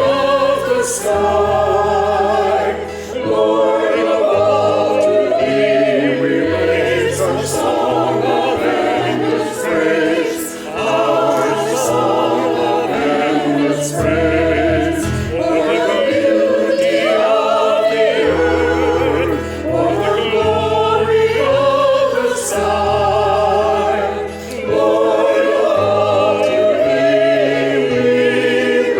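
A choir singing a sacred anthem in long, held notes with vibrato, over a steady instrumental accompaniment of sustained bass notes.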